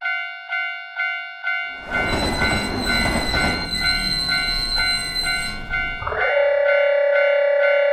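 Japanese railway crossing warning bell ringing its 'kan-kan' about twice a second. A train's running noise joins about two seconds in, and a long train horn blast begins about six seconds in.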